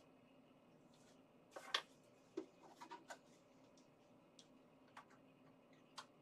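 Near silence: room tone broken by a handful of short, irregular clicks and ticks, the sharpest a pair about two seconds in.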